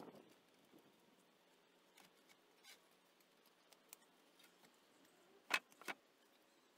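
Very quiet outdoor background with scattered faint clicks, then two sharp knocks in quick succession about five and a half seconds in, from work on the timber frame.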